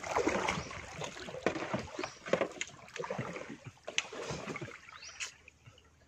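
Water splashing and dripping, with irregular knocks and clatter, as a crab trap is handled over the side of a small boat; the sounds die down near the end.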